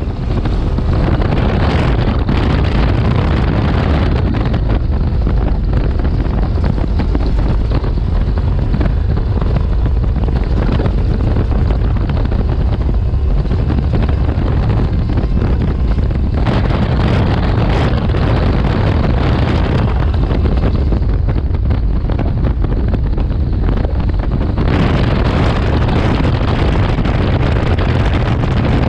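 Eliminator Daytona speedboat's 1,100 hp supercharged V8 running steadily at speed, a loud continuous low rumble. Wind buffets the microphone throughout and is heavier over some stretches.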